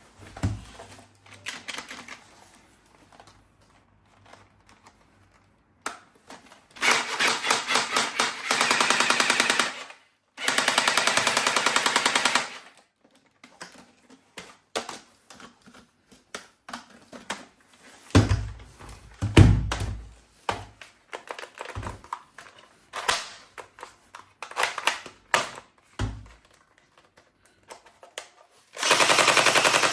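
Toy machine gun rattling in several bursts of rapid clicks, each lasting two to three seconds, with scattered clicks and low knocks of the toys being handled in between.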